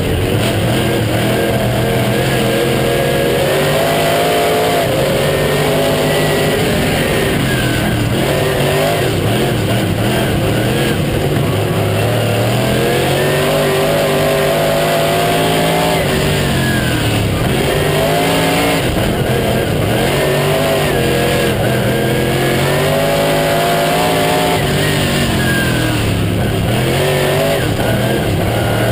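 Late model stock car's V8 engine at racing speed, heard from inside the cockpit, loud over a steady rush of noise. Its pitch drops and climbs back every eight to nine seconds as the car lifts off and accelerates again, lap after lap.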